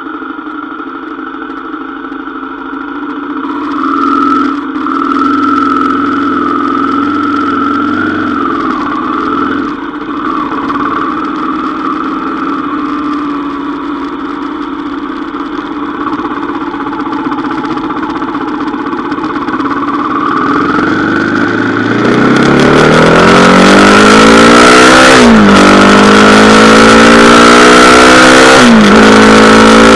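Kawasaki KLX250's single-cylinder four-stroke engine running at a steady low speed while the bike rolls slowly, then, about two-thirds in, getting louder and revving up hard through the gears, its pitch rising, dropping sharply at two upshifts, and rising again. Wind rushes over the microphone as speed builds.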